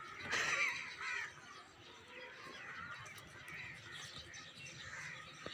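Bird calls: two loud, harsh calls in the first second or so, then fainter scattered calling.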